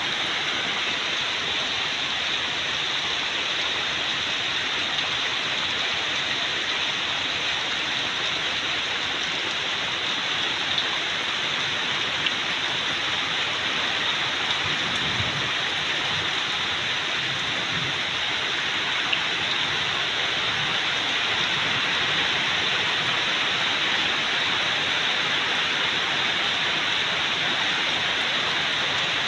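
Heavy rain pouring steadily onto a flooded paved yard and garden plants: an even, dense hiss of drops splashing into standing water.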